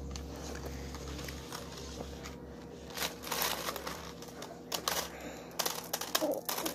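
Rustling and clicking of hands handling small objects close to the microphone: scattered clicks from about halfway in, coming faster near the end.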